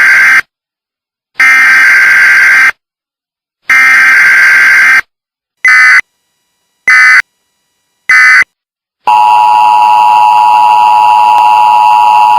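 Emergency Alert System (EAS) tones: three long screeching bursts of digital data tones, then three short bursts. About nine seconds in the steady two-tone EAS attention signal starts and holds.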